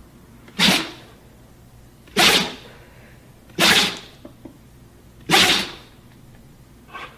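A dog sneezing four times, short sharp sneezes about a second and a half apart, then a fainter, shorter burst near the end.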